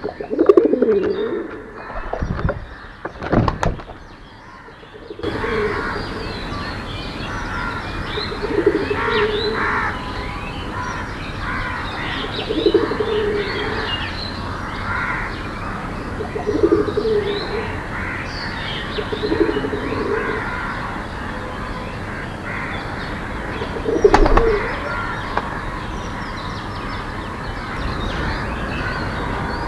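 Doves cooing in short low phrases every few seconds over a busy chorus of small birds chirping. A couple of sharp knocks sound in the first few seconds.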